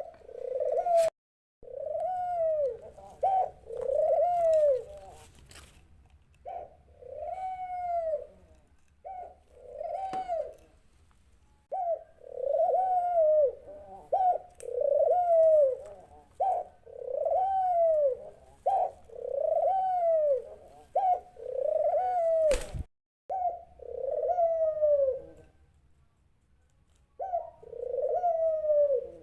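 A dove cooing: a long run of rising-and-falling coos, roughly one a second, broken by short pauses. Two sharp clicks cut in, about a second in and again near the last quarter.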